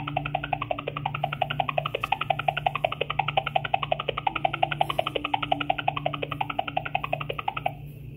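Hold music from an automated customer-service phone line playing through a cordless phone's speakerphone: a quick, even run of plucked notes, thin and tinny, that cuts off suddenly near the end.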